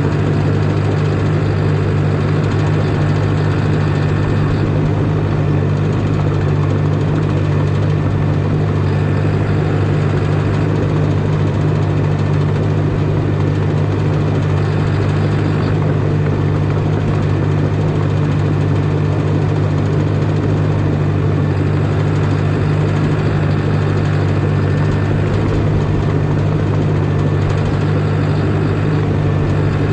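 Caterpillar D5 crawler dozer's diesel engine running at a steady speed, a loud, even low drone with no change in pitch.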